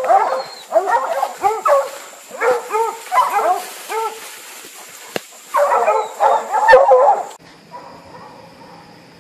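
Bear-hunting hounds baying in repeated bursts of short barks that rise and fall in pitch. About seven seconds in, the sound cuts abruptly to the steady hum of a vehicle driving.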